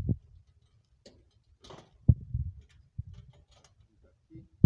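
Scattered light clicks and knocks of objects being handled, with one sharper knock about two seconds in.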